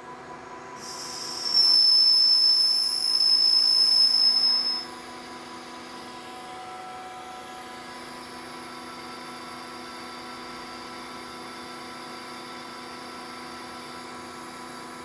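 Metal lathe boring stainless steel with a carbide insert boring bar. About a second in, a loud high-pitched squeal holds for some four seconds and then cuts off, leaving the lathe's steady hum and a faint whine. The squeal goes with an insert that two heavy 50-thousandths passes had damaged.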